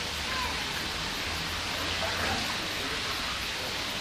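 Steady rush of flowing water, with a low rumble underneath and a few faint short bird calls over it, about a third of a second and two seconds in.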